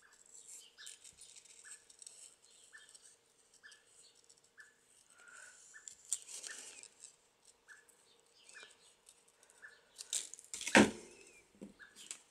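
Scissors snipping and trimming around a small paper cutout, with light paper rustling, then one loud knock on the table near the end.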